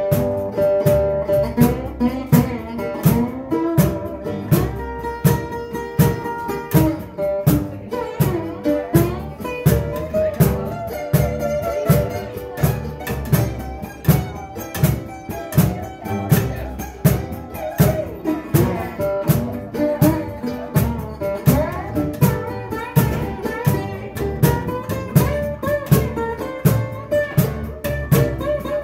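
Live acoustic band playing an instrumental passage: plucked guitars over an upright bass, with a cajon keeping a steady beat.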